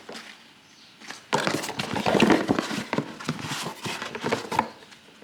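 Cardboard packaging of a hair dryer box being handled and pulled open by hand: about a second of quiet, then a busy run of knocks, scrapes and rustles.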